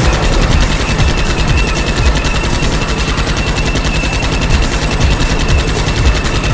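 Rapid-fire gunfire sound effect from a cartoon tank cannon, shots coming many times a second without a break, with a thin steady high tone running over it.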